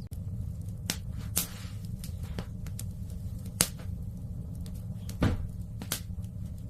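Wood fire burning in a fireplace: a steady low rumble with about five sharp crackling pops scattered through it, one of them louder than the rest about halfway through.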